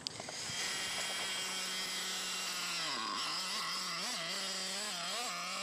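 Nitro RC car's small two-stroke glow engine running steadily at a high pitch. From about halfway its pitch wavers up and down repeatedly as the throttle is blipped.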